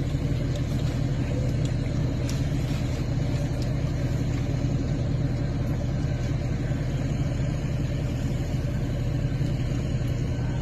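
Large engine idling with a steady, deep, even rumble, a few faint ticks over it.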